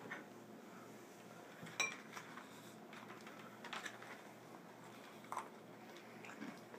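Hands scooping milk-soaked cereal on a paper plate on a wooden table: faint scattered taps and clicks, with one sharper clink about two seconds in.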